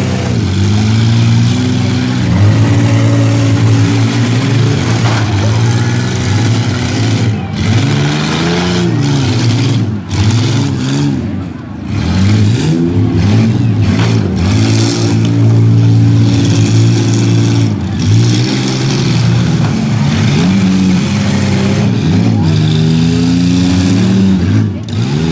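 Demolition-derby minivan engines revving hard, their pitch rising and falling again and again as the vans accelerate, back up and ram one another.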